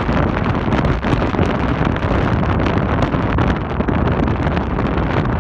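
Strong wind buffeting the microphone: a loud, steady rumbling rush with constant gusty flutter.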